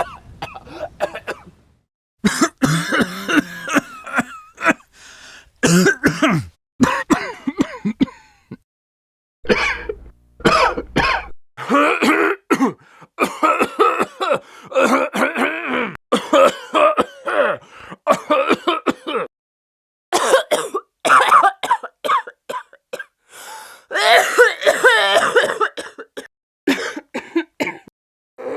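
Sick coughing fits from several people in turn: an elderly man, then a middle-aged man, then a woman. Each coughs continuously in rapid runs, unable to catch their breath, with brief pauses between the people.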